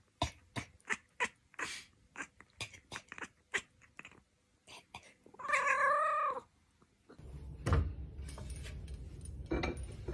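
A cat gives one long, wavering meow about five and a half seconds in, after a run of short clicks and ticks. Near the end come a knock and the clink of plates in a cupboard.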